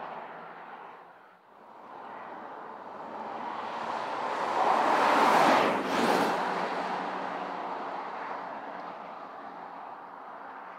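A Porsche Cayenne Turbo's twin-turbo V8 and tyres as it drives past. The sound builds as the SUV approaches, peaks as it passes about five to six seconds in, then fades as it drives away.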